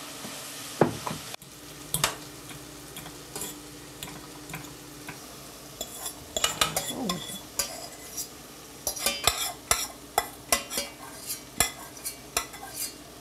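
A metal spoon scraping and clinking against an aluminium frying pan as onions, peppers and tomatoes are stirred, over a low sizzle. The clicks come thick and fast from about halfway through as flaked saltfish is scraped into the pan from a saucepan.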